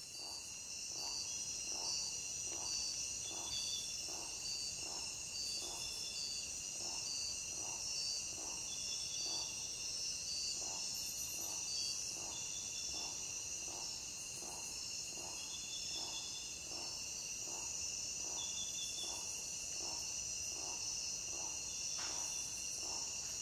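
Insects, likely crickets, chirping in a steady high chorus, with a lower call pulsing about twice a second.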